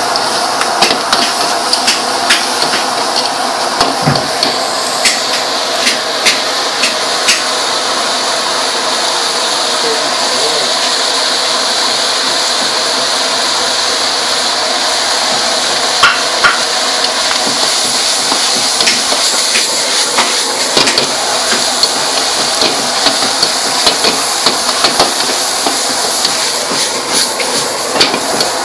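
A metal ladle scraping and clanking against a steel wok during stir-frying, over a steady sizzle of garlic, chilli and green vegetables frying in hot oil.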